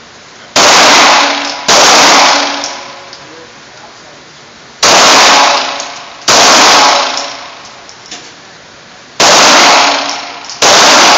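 Six pistol shots fired in three pairs, each pair about a second apart. The pairs come about a second in, around five to six seconds in, and around nine to ten and a half seconds in. Each shot rings out with a long echo off the walls of the indoor range.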